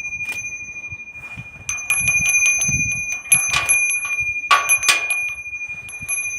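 A small bell rung over and over in irregular clusters of strikes. Its single high ringing note carries on between the strikes.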